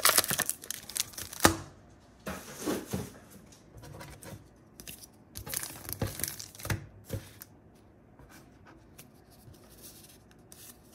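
A foil Yu-Gi-Oh! booster pack being torn open and crinkled by hand, in several bursts over the first seven seconds. After that come only light rustles as the cards are handled.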